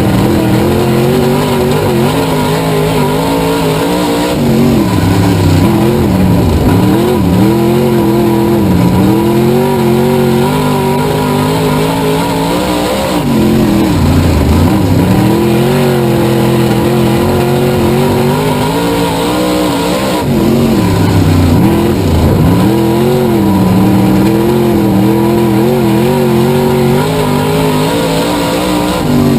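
Race car engine running hard, its pitch dipping and climbing back three times as the car slows and accelerates again.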